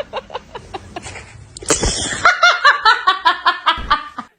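Laughter: a run of short repeated ha-ha syllables that turns louder, higher and quicker a little under halfway through, then stops.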